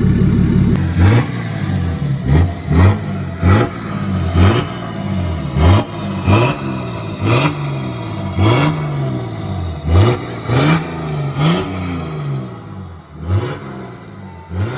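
BMW X5 diesel's straight-six, its exhaust deleted to a turn-down pipe, revved in short blips over and over, about once a second, each with a high turbo whistle that rises and falls with the revs.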